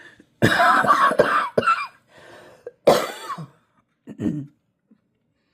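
A person with asthma and an upper respiratory illness coughing in bouts: a run of coughs about half a second in, a breath, another cough about three seconds in, and a smaller one near the end.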